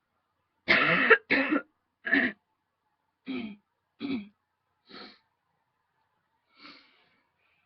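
A woman coughing in a run of seven short coughs, from a throat tickle. The first two are loud and close together, about a second in, and the rest come spaced out and grow steadily weaker, the last few little more than throat-clearing coughs.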